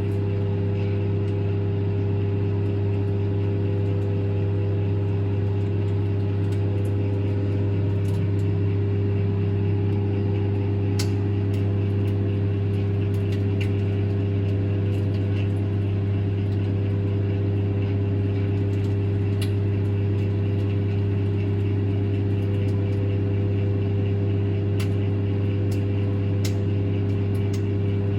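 Microwave oven running with a steady, even hum, with a few faint clicks scattered through it.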